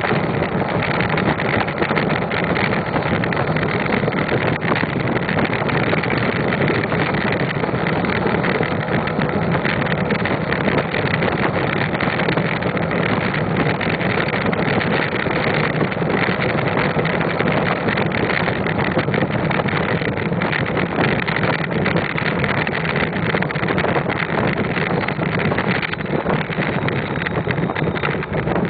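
Ford 6.0L Power Stroke V8 turbodiesel with a straight exhaust stack running steadily under way, heard from inside the cab with road and wind noise mixed in.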